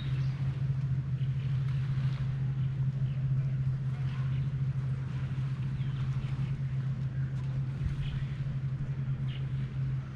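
A steady, low motor hum with a few faint bird chirps over it.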